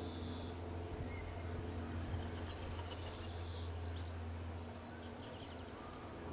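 Small songbirds singing in the background, with thin high-pitched notes and short rapid trills, over a steady low hum.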